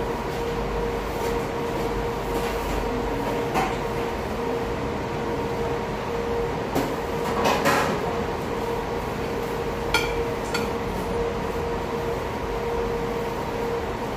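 Metal knife and fork clinking and scraping against a plate several times, most around the middle, over a steady hum and room noise.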